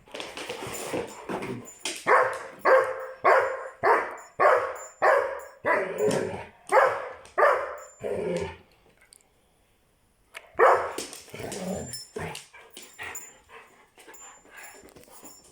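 Irish red and white setter barking in play: a quick, even run of about a dozen barks, nearly two a second, then a pause of about two seconds and a few more barks before it trails off into softer sounds.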